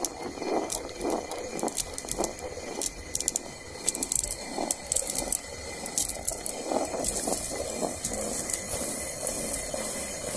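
Hand-turned rotary stone quern grinding rice into flour: the upper millstone rotating on the lower one makes a rough stone-on-stone grinding rumble that swells about twice a second with each turn, with scattered sharp clicks of grain cracking between the stones.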